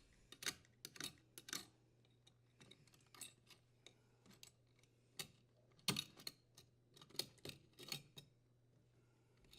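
Faint, scattered clicks and light taps: a dishwasher's wire strain relief nut being unthreaded by hand and the strain relief pulled off the junction box.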